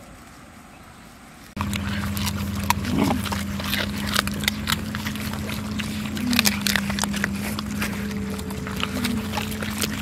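Several dogs eating grilled fish: wet chewing and crunching of fish bones and skin, many sharp irregular clicks, starting suddenly about a second and a half in over a steady low hum.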